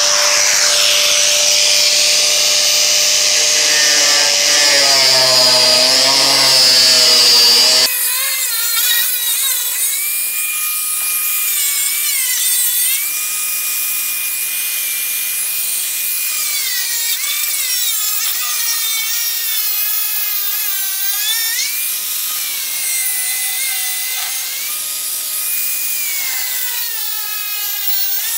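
Angle grinder with a cutting disc cutting through car-body sheet steel. Its whine repeatedly dips in pitch as the disc bites into the metal, then climbs back.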